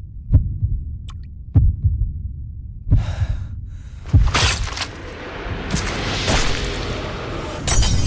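Heartbeat sound effect: four slow, heavy thumps about a second and a quarter apart. From about three seconds in, a rushing, hissing swell builds over them, and near the end there is a sharp crash of glass cracking.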